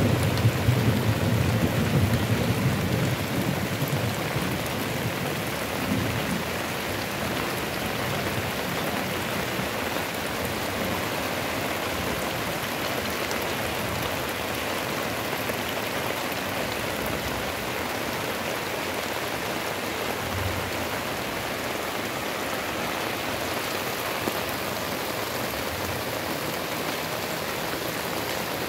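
Heavy rain pouring steadily. A low rumble of thunder fades away over the first few seconds.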